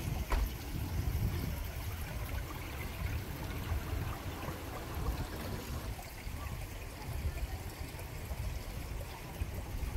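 Wind buffeting an outdoor microphone: an uneven, fluctuating low rumble under a faint rushing hiss.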